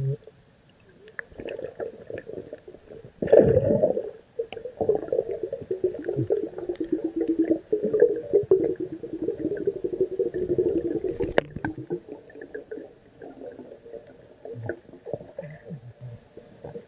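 Muffled underwater noise picked up by a submerged camera: low rumbling water wash scattered with many small clicks and crackles. It surges loudly a little over three seconds in, stays busy through the middle with one sharp click, then dies down.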